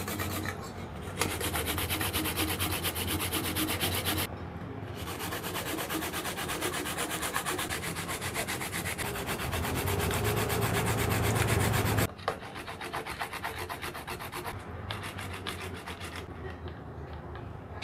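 Fruit being grated by hand on a flat stainless-steel grater: a quick, even run of rasping strokes, with short breaks about one and four seconds in. The grating goes quieter about twelve seconds in, and yellow cherry tomatoes are on the grater near the end.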